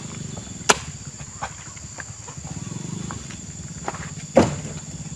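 Two sharp, heavy impacts, about a second in and again near the end, with a few lighter knocks between, as oil palm fresh fruit bunches are loaded and land on a truck's bed. A low steady hum and a thin high steady tone run underneath.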